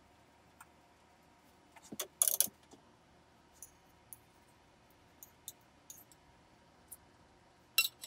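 Light metallic clinks and taps of utensils against a metal pan and a plate while food is plated, in a short loud cluster about two seconds in, scattered single ticks after, and one more sharp clink near the end.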